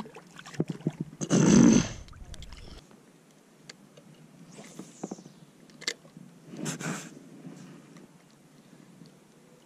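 Handling noises in a fishing kayak: scattered knocks and clicks, with a loud brief rush of noise about a second and a half in and a smaller one about seven seconds in.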